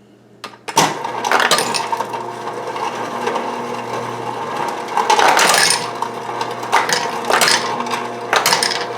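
Refrigerator ice dispenser starting about a second in: the auger motor runs with a steady hum while ice clatters down the chute. The dispenser is running on its newly replaced micro switch, which now works.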